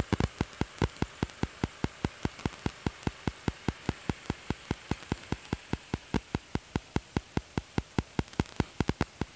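Rapid, evenly spaced sharp ticking, about six clicks a second at a steady rate, over a faint steady hiss.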